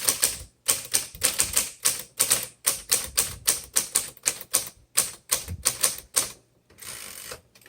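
1952 Smith Corona Silent manual typewriter being typed on: a quick, irregular run of type bars striking, about five a second, with a longer rasping sound near the end.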